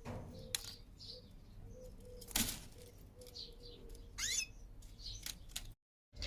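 Caged pet birds chirping in short high notes, with a louder falling call about four seconds in. Scattered sharp clicks and knocks sound among the chirps; the loudest comes about two and a half seconds in.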